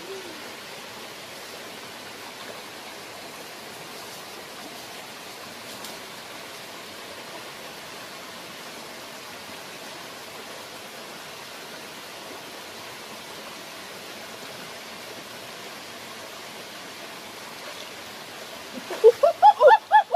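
Steady rush of running water in a shallow rocky pool. About a second before the end, a quick run of loud, short, high calls that bend in pitch.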